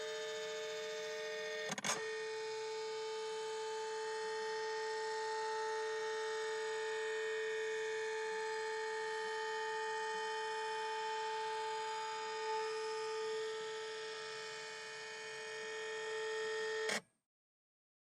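Flatbed scanner running a scan: its carriage motor whines at a steady pitch. There is a click about two seconds in, where the tone shifts, and the sound stops suddenly about a second before the end.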